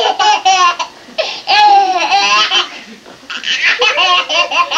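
A baby laughing in repeated high-pitched bursts, with one longer peal about a second in.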